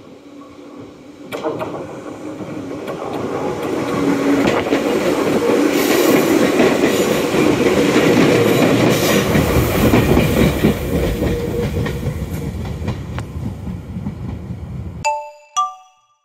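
Toyohashi Railway 1800 series electric train approaching and passing close by, the rumble of its wheels on the rails building over a few seconds and staying loud for about ten seconds. The sound cuts off suddenly near the end, followed by a few short tones.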